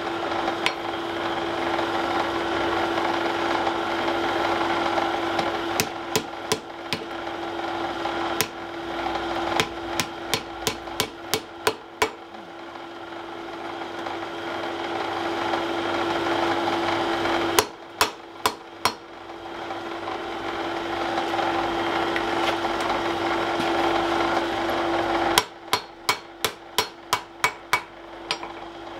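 Ball-peen hammer striking a red-hot wrought-iron bar on an anvil, bending it to shape. The blows come in bursts of about three a second, separated by pauses, over a steady motor hum.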